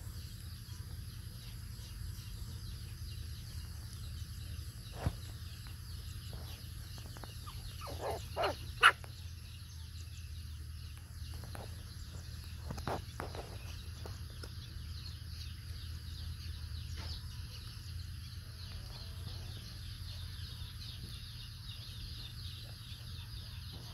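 Outdoor ambience with a steady low hum and a faint, steady high-pitched drone, broken by a few short sharp clicks. The loudest click comes about nine seconds in.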